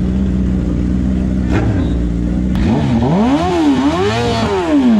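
A Suzuki Hayabusa's engine idles steadily. About halfway through, a BMW S1000RR's inline-four takes over and is revved twice in quick succession, its pitch rising and falling back each time.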